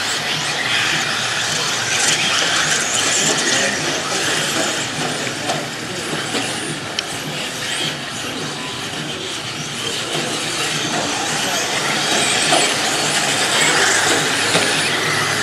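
Electric 1/10-scale off-road RC buggies racing on a clay track: a steady mix of high motor whine and tyre noise that swells and fades as the cars pass.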